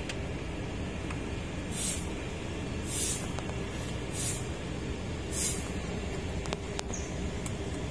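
A 7-ton forklift's engine running steadily, with four short hisses about a second apart in the middle.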